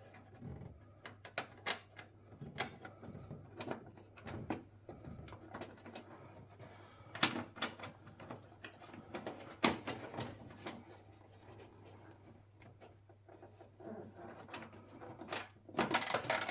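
Irregular clicks and light metallic taps from small metal fittings and hand tools being handled while a bonnet gas strut's ball joint and washer are fitted, with the loudest knocks about seven and ten seconds in. A faint steady low hum runs underneath.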